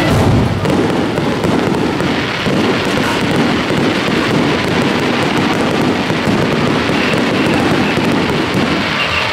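Fireworks bursting overhead in a dense, unbroken barrage of bangs and crackling.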